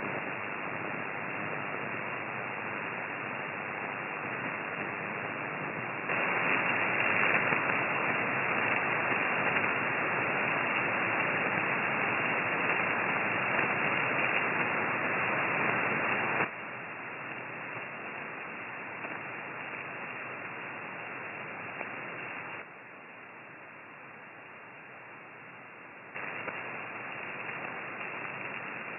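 Amateur radio receiver on the 6-metre band putting out a steady rushing hiss of interference noise with no signal, cut off above about 3 kHz like a voice channel; the noise is the interference problem being shown. It jumps louder about six seconds in, drops back about ten seconds later, dips quieter for a few seconds near the end, then comes back up.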